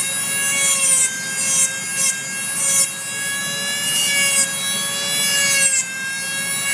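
Flexible-shaft rotary carving tool running with a steady high whine while its burr grinds into wood in short scratchy passes.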